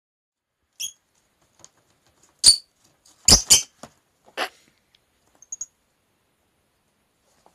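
A lovebird gives a short chirp. Then a box folded from paper flyers tips over onto a wooden table with a few loud paper knocks and rustles, and two faint high chirps follow.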